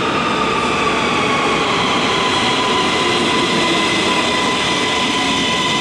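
Siemens Inspiro metro train pulling into an underground station and slowing: a steady rumble of wheels on rail, with a whine of several tones that glides slowly down in pitch as it brakes.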